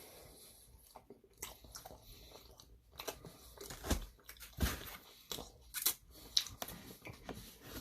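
A person chewing and biting into a Papa John's Papadia close to the microphone, with irregular crisp crunches, a few of them louder, between quieter chewing.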